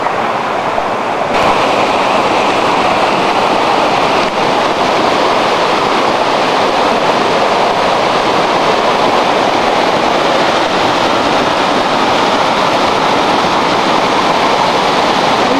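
Mountain river rapids rushing steadily over rock slabs, heard close up; the rush grows brighter about a second in and then holds.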